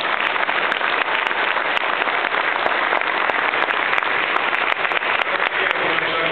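A large crowd applauding, many hands clapping at once in a steady, dense patter.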